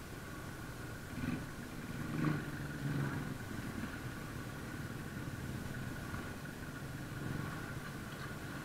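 Motorcycle engine running at low revs while riding slowly, swelling briefly a few times in the first three seconds.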